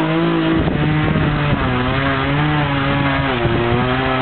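Chainsaw engine running at high speed, its pitch wavering with a few brief dips.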